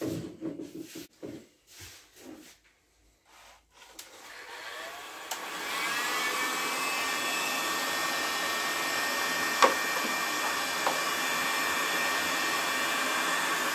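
An electric heat gun is switched on about four seconds in, its fan spinning up with a rising whine and then blowing hot air steadily onto a PET bottle to shrink it onto a mould. Before it starts there are a few knocks and rustles.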